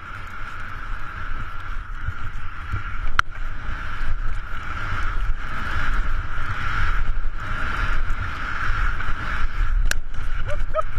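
Wind buffeting the skier's camera microphone and skis hissing through deep powder snow on a downhill run, a steady rushing noise with a heavy low rumble. Two sharp clicks cut through it, about 3 seconds and 10 seconds in.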